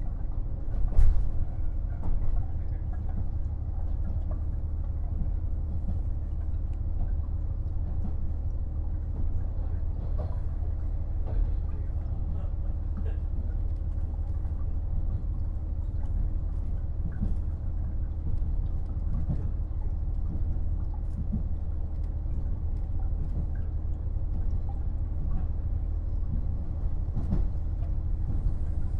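Running sound inside a KiHa 48 500-series diesel railcar: the steady low rumble of its diesel engine and wheels on the rails, with scattered clicks as the wheels cross rail joints and one louder knock about a second in.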